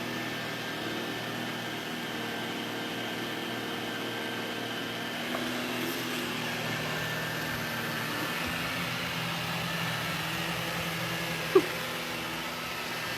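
Robot vacuum running: a steady mechanical hum with a few held tones, and one brief sharp sound near the end.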